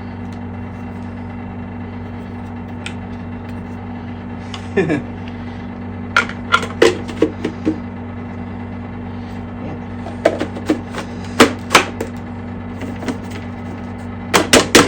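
Sharp knocks and clatters in several bursts as the plastic dust bin and filter parts of a clogged bagless upright vacuum are handled and tapped out, over a steady low hum.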